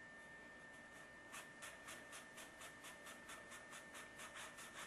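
Copper pipe being scrubbed clean by hand to prepare it for soldering: a faint, quick scratching rub, about six strokes a second, starting about a second in.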